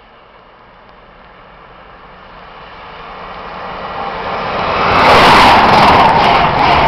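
InterCity 125 High Speed Train approaching and passing at speed. Its noise swells steadily for about five seconds to a loud rush as the leading power car goes by, then a rapid, regular beat of wheels as the coaches pass.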